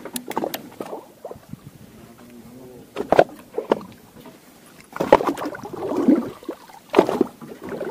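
Waves slapping and sloshing against a small fishing boat's hull, with several irregular knocks and splashes.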